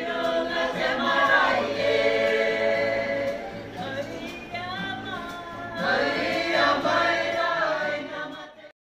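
Group of performers singing a Māori waiata together in chorus. The singing cuts off abruptly near the end.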